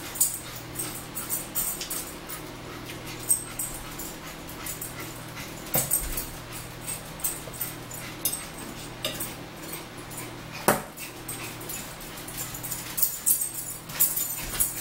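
Close-up eating sounds: chewing and mouth clicks with scattered sharp ticks of a fork against a plate, one louder knock near the end, over a steady low hum.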